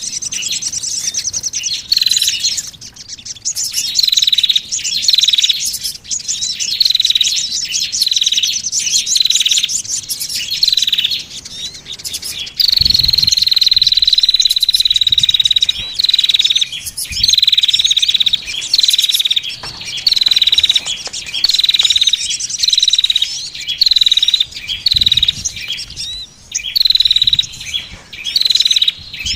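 Small songbirds calling loudly in a bird-lure recording. Short, high chirps with a falling tail repeat about once a second, broken near the middle by one long, buzzy, high trill lasting about three seconds.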